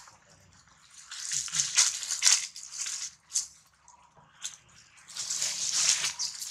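Dry fallen leaves rustling and crunching under a macaque moving over them, in two stretches of a second or two with a couple of sharp crackles in between.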